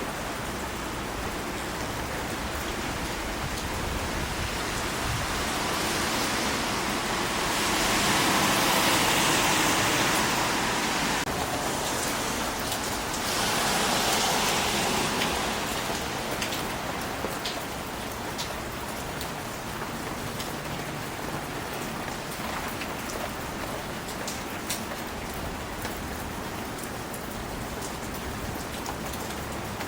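Steady rain falling on leaves, with drops dripping off them. The rain swells louder twice, then settles, with individual drops tapping distinctly near the end.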